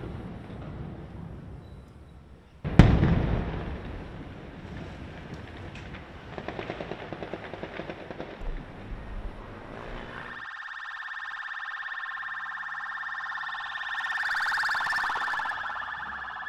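Gunfire echoing over the town: one loud shot about three seconds in that rings out, then a fainter rapid run of shots. From about ten seconds in, an ambulance siren sounds steadily.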